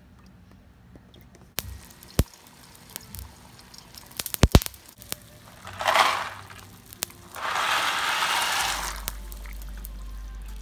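Kitchen sounds at a stovetop saucepan: a few sharp clicks and knocks, then water at a rolling boil, with dry elbow macaroni poured from its box into the boiling water. Just past the middle there is a loud, crackling, rushing burst lasting about a second and a half, followed by steadier, quieter noise.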